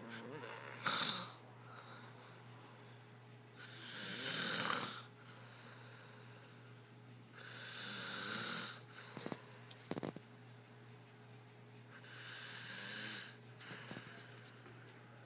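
A girl snoring: long rasping snores that swell and cut off roughly every four seconds, after a short one about a second in. A few sharp clicks come between the snores near the middle.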